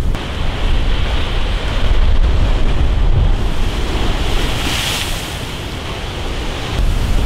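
Heavy storm surf driven by an offshore hurricane breaking against a concrete seawall, with strong wind buffeting the microphone. A louder rush of spray comes about five seconds in.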